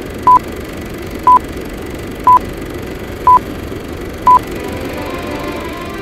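Film-leader countdown beeps: a short, loud, single-pitched beep once a second, five times, over a steady low noise. Faint music begins to come in near the end.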